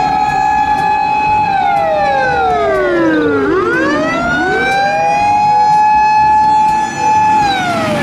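Japanese fire engine sirens wailing: a long held tone slides down, then climbs back up, with a second overlapping siren a beat behind. Near the end the tone starts to fall again.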